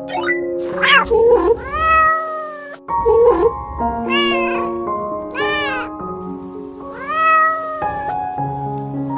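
A cat meowing four times, long drawn-out meows that rise and fall, over light background music.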